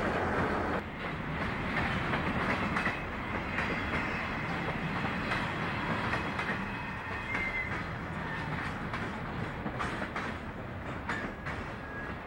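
Freight train of boxcars and tank cars rolling past, a steady rumble with the steel wheels clacking over rail joints, the clacks coming thicker in the second half.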